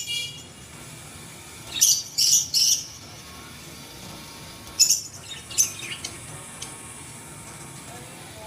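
Birds chirping in short high-pitched bursts: a cluster of calls about two seconds in and more around five to six seconds in, over a steady faint hiss.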